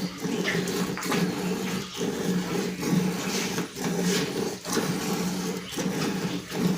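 A machine running with a steady low hum that dips briefly about once a second, in an even rhythm.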